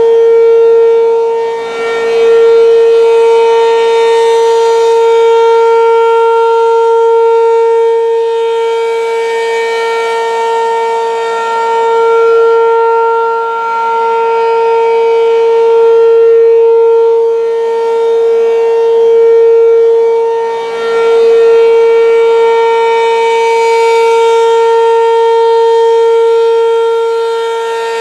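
American Signal RM-127 rotating outdoor warning siren sounding the steady Alert signal. It holds a level pitch while its loudness slowly swells and fades as the rotating horn sweeps past.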